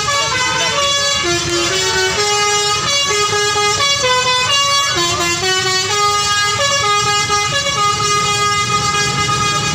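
Bus "telolet" horn, a set of musical air horns, playing a melody of steady tones that step from pitch to pitch about every half second, over the low rumble of bus engines.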